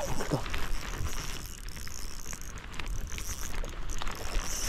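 Shimano Stradic CI4+ 2000 spinning reel being cranked, its gears and handle clicking and whirring as the lure is reeled in.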